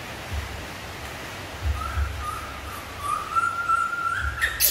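Steady hiss of rain, with a thin whistle-like call starting about a second and a half in, held for nearly three seconds and rising at the end, then a few sharp clicks.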